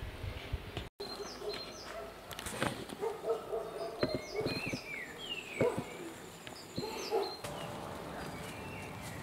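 Birds chirping in short rising and falling calls, with scattered knocks and scuffs of footsteps on a stony trail.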